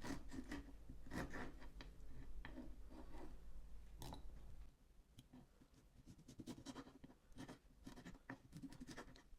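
Knife cutting half an orange into small pieces on a cutting board: a run of irregular taps and light scrapes.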